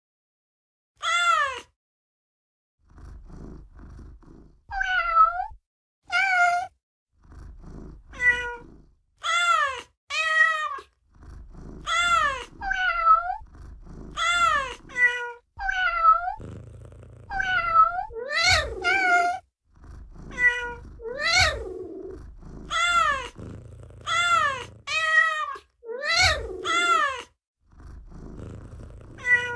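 Cat meows and purring from Google Search's "cat" Easter egg. About twenty short meows, each rising and falling in pitch, come one after another at uneven gaps, with a low purr between them after the first two.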